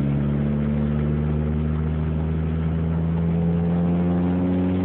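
2004 Dodge Neon SRT-4's turbocharged 2.4-litre four-cylinder engine running with the clutch out, a steady drone whose pitch slowly creeps up over the last couple of seconds. This is the odd high idle that the owner thinks could be a vacuum leak.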